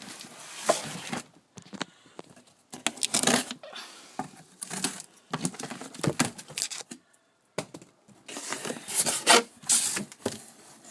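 Packaging being torn open and handled: irregular bursts of tearing and crinkling with a few sharp knocks, pausing briefly about seven seconds in.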